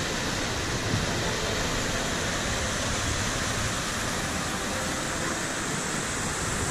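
Waterfall tumbling over rocks into a pool on a hill stream: a steady, even rush of water.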